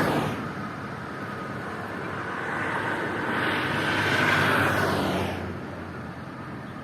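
Motorway traffic: a vehicle passing at speed, its tyre and engine noise swelling to a peak about four seconds in and then fading. At the start, the noise of an earlier pass-by dies away.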